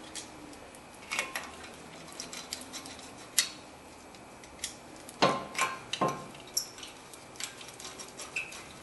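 Sparse metallic clicks and clinks of hand tools against steel brake parts as bolts are threaded in and snugged up by hand. The loudest clinks come about five to six seconds in and ring briefly.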